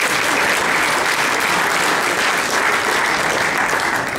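A roomful of people clapping: steady, sustained applause.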